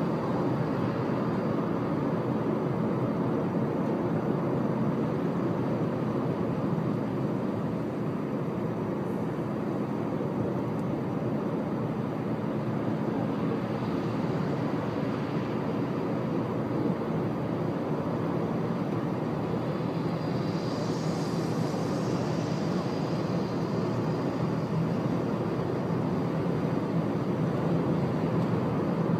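Steady road noise of a car driving at expressway speed, heard from inside the cabin: tyre and engine drone with a low steady hum. A faint hiss swells and fades about two-thirds of the way through.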